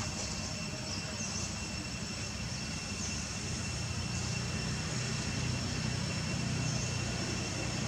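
Outdoor ambience: a steady low rumble, swelling a little about five seconds in, under a constant high-pitched whine. Short faint chirps come every second or two.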